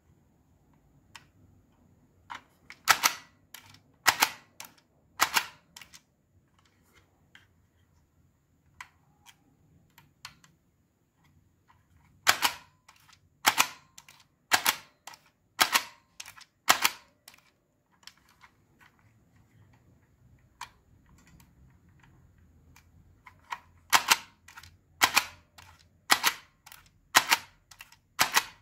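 Hand-held Fixxar MX-4400 price labeling gun clacking as its trigger is squeezed, printing and dispensing labels, about one loud clack a second in runs of three, five and five. Faint small ticks between the runs.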